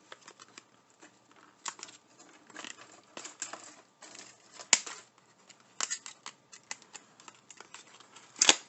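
A small cardboard blind box being torn open and handled by hand: irregular tearing, rustling and clicking, with a sharp snap about halfway and another near the end.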